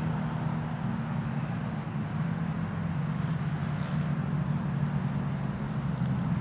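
Racing kart engines running with a steady, even drone.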